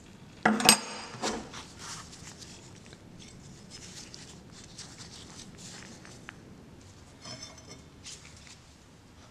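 Rusty cast iron Stanley block plane knocked against a wooden workbench about half a second in, with a brief metallic ring, then a smaller knock. After that come quiet rubbing and clicks of gloved hands turning the plane over.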